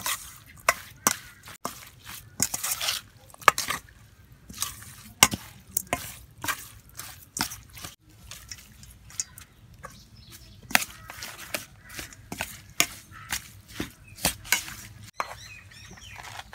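Metal spoon stirring a wet mixture of raw small fish and chopped herbs in a stainless steel bowl, with irregular clinks and scrapes of the spoon against the bowl about once or twice a second.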